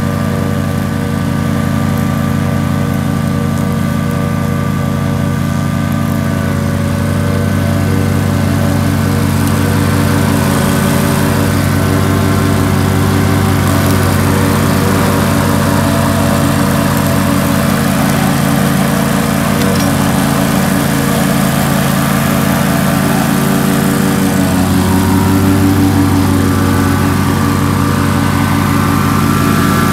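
Engine of a Stella XRot remote-controlled tracked slope mower running steadily at an even speed as the mower works across grass.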